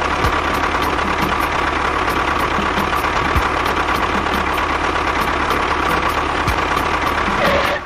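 Tractor engine running steadily at a constant speed, with an even hum and rumble.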